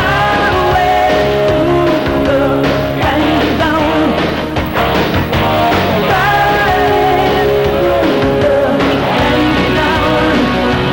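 Loud rock music with a wavering melodic line over steady bass notes.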